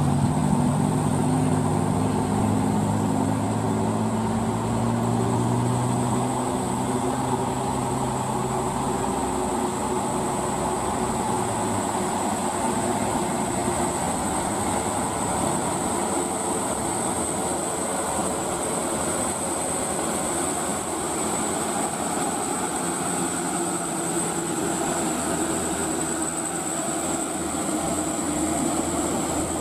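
Diesel engine of a loaded dump truck labouring uphill, its low drone strongest for the first ten seconds or so and then fading as it moves away, over a steady hiss of tyres on a wet road. A thin, steady high-pitched whine runs throughout.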